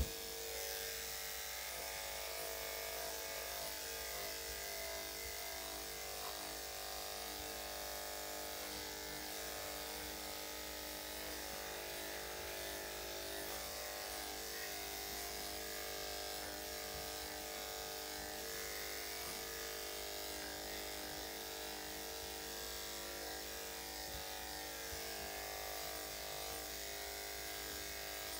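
Electric dog grooming clippers fitted with a #7 blade running steadily as they clip the coat, a constant motor buzz. A brief knock right at the start.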